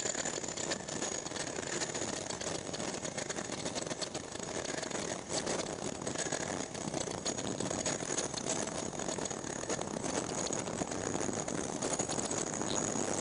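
Ultrasonic doctor-cap making machine running: a continuous fast mechanical rattle from its drive and fabric-feed mechanism, with a thin steady high whine over it.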